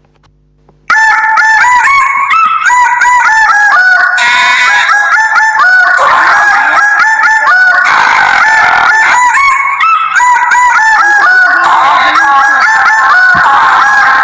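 A flock of geese honking, many short overlapping calls in a loud, dense chorus that starts abruptly about a second in. It is a ringtone recording being played back.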